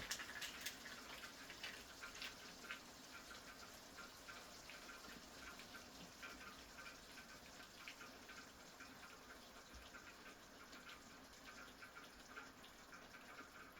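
Faint, irregular bubbling of liquid: a pot of pasta boiling on the stove.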